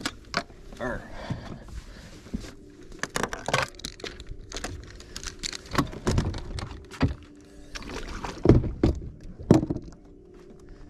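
Irregular knocks, thumps and rattles of fishing gear being handled on a bass boat's front deck, with two louder thumps near the end, over a faint steady hum.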